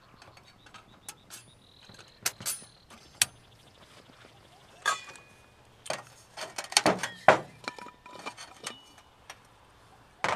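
Metal clinks and knocks: a boil plate set down onto a folding steel camp stove, with a few sharp clinks that ring briefly, then a stainless steel water bottle handled and its cap unscrewed in a busier run of knocks and scrapes.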